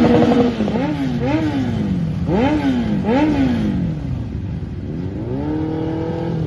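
Motorcycle engines revved as the bikes ride slowly past: a held high rev drops away, then a string of quick throttle blips rises and falls in pitch, and near the end an engine climbs to a steady higher rev.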